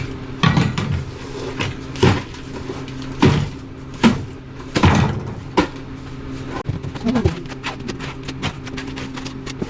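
Irregular sharp knocks, about one a second, then a quicker run of small clicks near the end, over a steady low hum.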